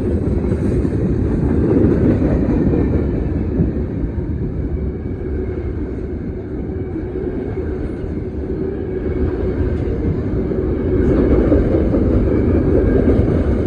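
CSX manifest freight train's cars rolling past close by: a steady rumble of steel wheels on the rails, swelling a little twice.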